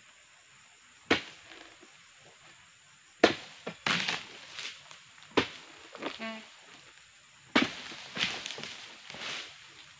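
Pole-mounted dodos pruning chisel chopping and breaking dry oil palm fronds: about eight sharp hits at irregular intervals, some trailing into crackling.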